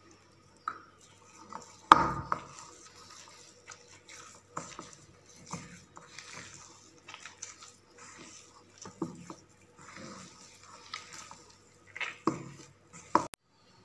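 Hands mixing and kneading stiff maida-and-semolina biscuit dough in a metal bowl: soft rubbing and squashing with irregular knocks and scrapes against the bowl, the loudest knock about two seconds in and a few more near the end.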